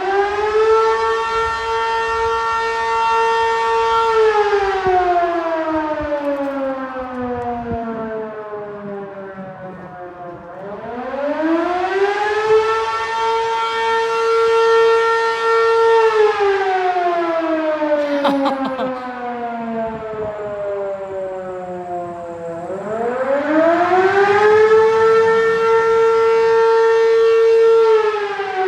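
Fire siren being tested, sounding a slow wail. Three times it winds up to a high steady pitch within about two seconds, holds it for a few seconds, then slides slowly back down.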